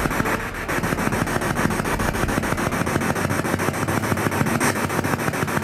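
Ghost-hunting spirit box sweeping through radio stations: a steady, fast, even chopping of static with no words coming through.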